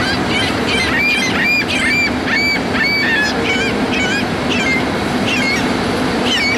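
Freight train of tank cars rolling past with a steady rumble, and the wheels squealing on the rails in short, high-pitched, rising-and-falling squeaks, two or three a second.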